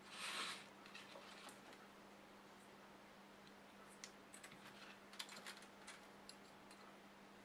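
Faint small clicks and taps of a soldering iron and tweezers being handled, scattered in the second half, after a brief rustle at the start. A faint steady hum runs underneath.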